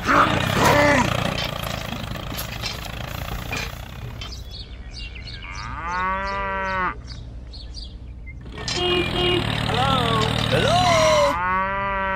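A small motor runs for the first few seconds. Then a cow moos twice, long calls about six seconds in and again near the end, with shorter animal calls in between.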